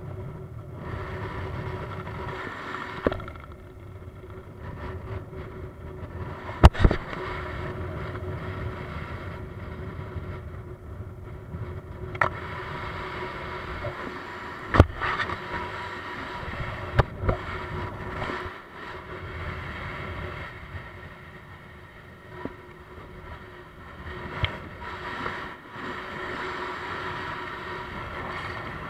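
Wind rushing over a camera microphone under an open parachute canopy: a steady rushing noise broken by a few sharp knocks, the loudest about a quarter of the way in.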